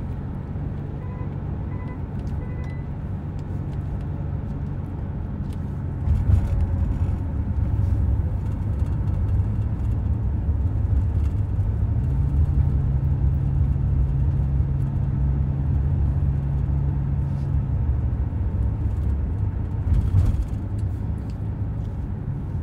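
Low rumble of engine and road noise inside a moving car's cabin, with a steadier engine hum for several seconds midway. Three faint short beeps come in the first few seconds.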